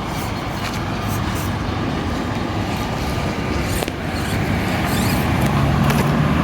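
Small Axial SCX24 RC crawler driving over the course, its little electric motor and gears running steadily under a dense, continuous noise, with a few faint clicks from the rig on the obstacles; a steady low tone comes in over the last second and a half, rising slightly.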